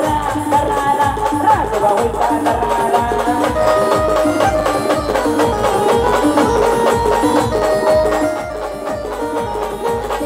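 Live band music played loud through a large sound system: a fast, steady heavy drum beat of about three strokes a second, with shakers and a melody of held notes over it.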